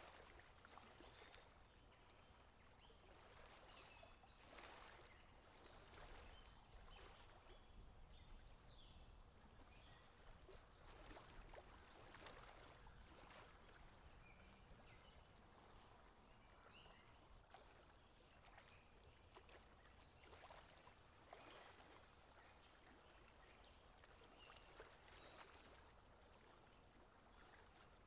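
Near silence: faint flowing-water ambience with scattered soft ticks and a few brief, faint high chirps.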